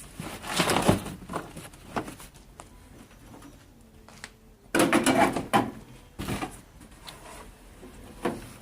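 Objects being handled and moved about: irregular rustling, knocks and clicks, loudest near the start and again about five seconds in.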